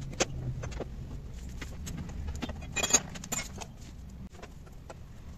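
Socket wrench working the bolts of a scooter's CVT (kick) cover: a run of irregular metallic clicks and clinks, with a brighter cluster about three seconds in.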